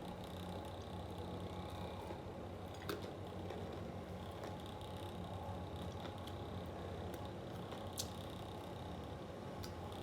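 Steady hum of an electric fan running, with soft chewing and two sharp clicks, about three seconds in and again about eight seconds in.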